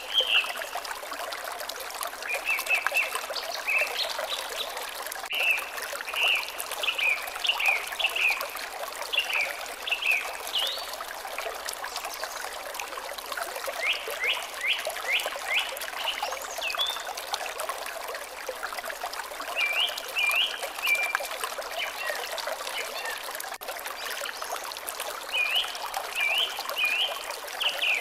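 Water trickling steadily, with a bird singing over it in several short phrases of quick, repeated chirps, separated by pauses.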